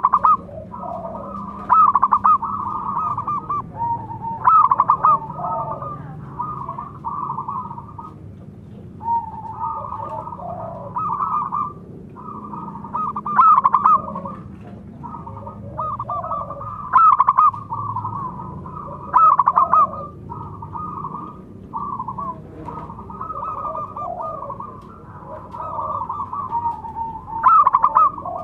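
Zebra dove (perkutut) cooing: phrase after phrase of rapid, stuttering coos on much the same pitch, with short gaps between them and louder notes every few seconds.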